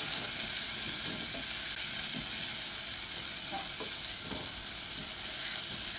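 Dry lentils and chopped onion sizzling in olive oil in a hot pan as they are sautéed, with a spatula stirring and scraping now and then.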